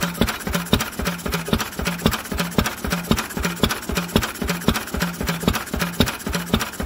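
Lister B single-cylinder stationary engine running steadily after a cold start, off choke, with an even, regular beat of firing strokes. It is running smoothly, its freshly fitted crankcase door gasket dry.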